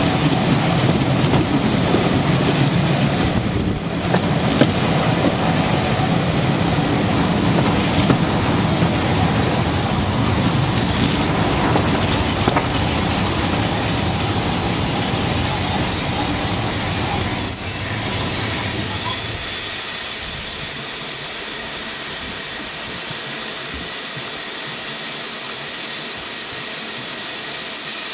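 Steam train hauled by two BR Standard Class 9F locomotives, heard from a carriage window: the coaches rumble along the track with steam hissing. About two-thirds of the way in the low rumble falls away, leaving a steady hiss.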